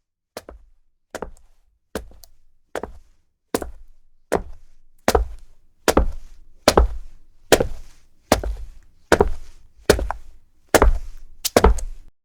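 Running-shoe footsteps on a hard surface: a steady series of single steps about 0.8 s apart, growing steadily louder, the last one doubled.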